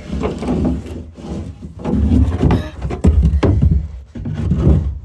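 A wooden goat-barn door being handled and moved, with knocks and scraping, mixed with heavy rubbing on the phone's microphone as the phone is held in the same hand.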